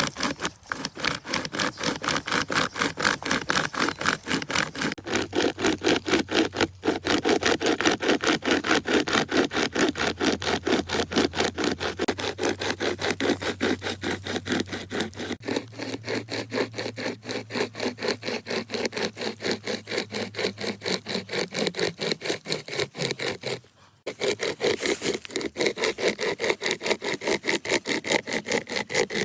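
A saw cutting through wood with quick, rhythmic back-and-forth strokes that rasp steadily. Sawing pauses briefly about seven seconds in, and again for about half a second near 24 seconds, before resuming.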